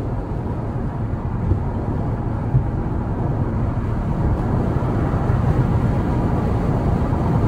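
Interior noise of a C8 Corvette on the move: its V8 and Z51 performance exhaust with road noise, a steady low rumble that grows gradually louder.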